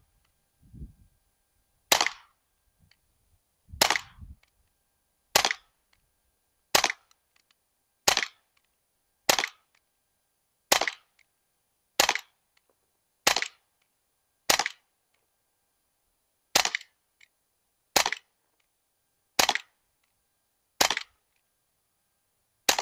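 Umarex Glock 19X Gen 5 CO2 blowback BB pistol firing fifteen shots, about one every second and a half. Each is a sharp pop from the CO2 charge with the metal slide cycling. On the last shot, near the end, the slide locks back because the magazine is empty.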